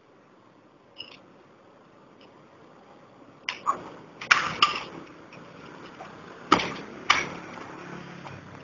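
After about three seconds of near-quiet, a run of sharp smacks and hits, about six in all, several in quick pairs, as two people trade strikes and blocks in martial-arts sparring.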